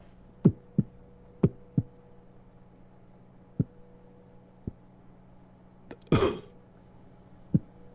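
Low, short thumps like a heartbeat: two quick pairs in the first two seconds, then single thumps spread further apart. About six seconds in comes a short, noisy, cough-like burst, the loudest sound, all over a faint steady hum.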